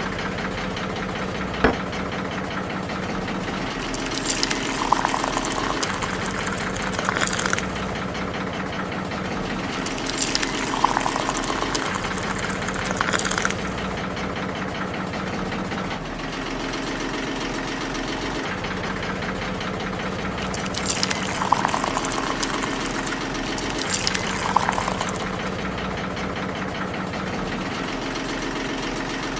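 Small engine running steadily at idle, driving a miniature belt-driven juicer. Three times the sound swells louder and rougher in quick pairs, then settles back to the steady running.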